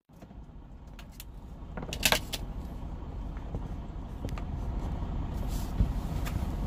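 Semi-truck's diesel engine idling, a low steady rumble heard inside the cab, with scattered clicks and knocks of things being handled; the loudest knock comes about two seconds in.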